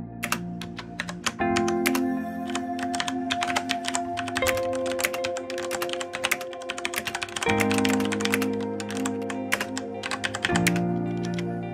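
Fast, uneven typing on a CM Storm QuickFire Rapid-i mechanical keyboard with Cherry MX Brown switches, many keystrokes a second, over background music with long held tones.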